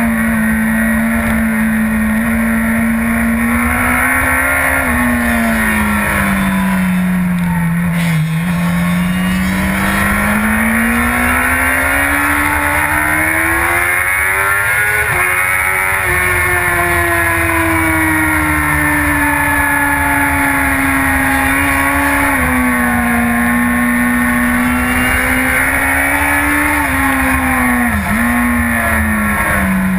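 Yamaha R1's crossplane inline-four engine running under load, heard from onboard with wind rush. The engine pitch sinks around eight seconds in as the throttle is rolled off, climbs steadily to a peak about halfway, then eases down with two brief dips near the end.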